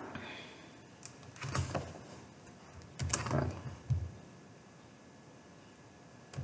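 A few scattered keystrokes on a computer keyboard, short sharp clicks in three or four small groups.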